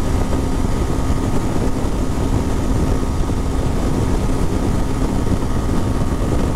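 Motorcycle riding at highway cruising speed: heavy wind rushing over the microphone, with the Suzuki Gixxer SF's engine humming steadily underneath.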